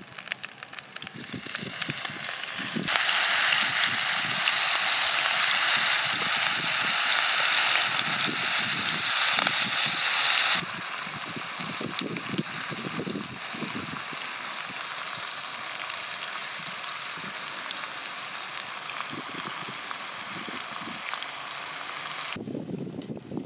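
Fish frying in hot oil in a pan with chili-lemon sauce: a loud sizzle starts suddenly about three seconds in, then settles about ten seconds in to a quieter, steady sizzle and bubbling. Near the end the sizzle cuts off to a low rumble of wind.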